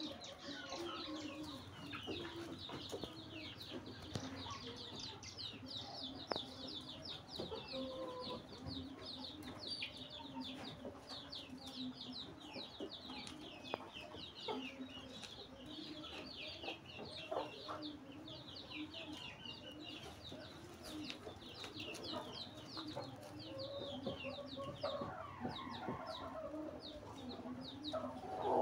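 Chickens clucking, under a continuous chatter of quick, high chirps from small birds.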